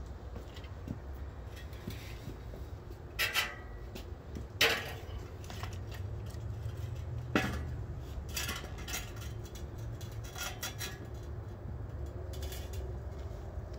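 Scattered metallic clanks and clinks of steel parts being handled, with a few louder knocks in the first half, over a low steady rumble.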